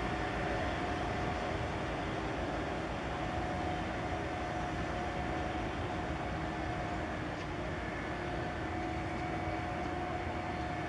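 A steady mechanical hum holding two even tones over a constant low rumble.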